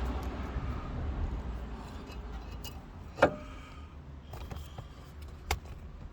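Light metallic clinks and taps of hand tools on a brake assembly, with two sharper clinks about three seconds in and near the end. Underneath is a low steady hum, and a passing car fades away at the start.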